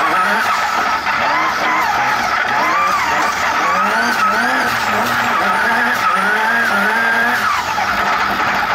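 Turbocharged engine of an off-road race buggy, heard from inside the cockpit, revving up and falling back again and again as it is driven hard on and off the throttle. It is running on wastegate spring pressure only, well down on its boost-controlled power.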